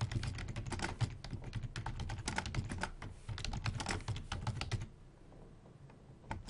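Rapid keystrokes on a computer keyboard typing out a line of text. The typing stops about three-quarters of the way through, and there is one more key press just before the end.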